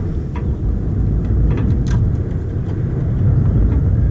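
Wind buffeting the camera microphone: a loud, uneven low rumble, with a few faint clicks over it.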